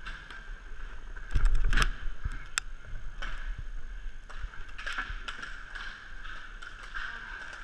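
Inline skate wheels rolling on plastic sport-court tiles, a steady whir heard close up from a helmet camera. A loud clattering thump comes about a second and a half in, and a few sharp clacks follow.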